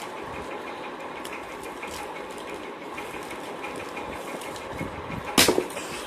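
Steady background machine hum with a faint, fast ticking. Near the end a short, loud crackle as the phone's outer packaging is torn open.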